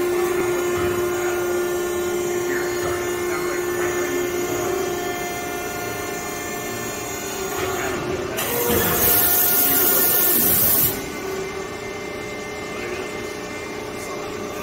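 CNC turret punch running with a steady, multi-toned mechanical hum. About eight seconds in, a loud hiss cuts in, lasts about two and a half seconds, then stops sharply.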